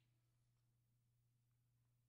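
Near silence: room tone with a faint, steady low hum.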